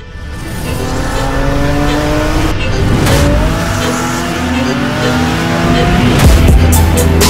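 Car engine accelerating under load, its note climbing steadily in pitch, with a break about three seconds in, as in a gear change.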